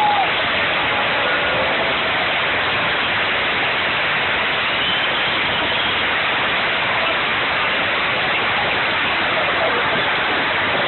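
Football stadium crowd cheering a home goal: a steady, loud roar of many voices, with a few single shouts rising above it.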